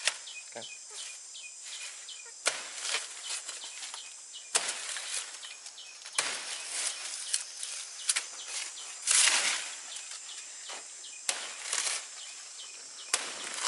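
Dry banana leaves rustling and crackling as they are grabbed and pulled by hand, in a run of irregular sharp snaps, with a longer, louder rustle about nine seconds in.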